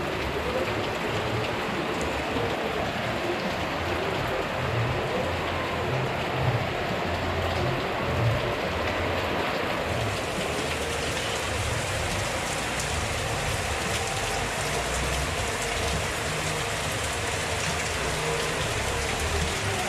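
Heavy rain pouring down steadily, a dense even hiss that turns brighter about halfway through as the downpour grows heavier.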